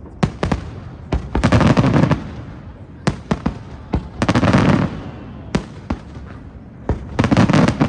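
Fireworks display: single sharp shell bursts mixed with three dense crackling volleys of rapid bangs, about one and a half, four and a half and seven and a half seconds in.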